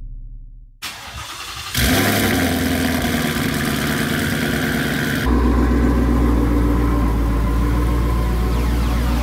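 Twin-turbocharged 2019 Ford Mustang GT's 5.0 Coyote V8, breathing through a Corsa Xtreme catback exhaust, starting with a sudden loud flare about two seconds in and settling to idle. About five seconds in the idle turns deeper and steadier.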